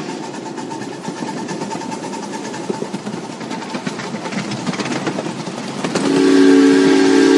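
Ride-on miniature railway train running along its track, wheels clicking irregularly over the rails. About six seconds in, the locomotive's whistle blows a loud chord of several notes, held for about a second and a half.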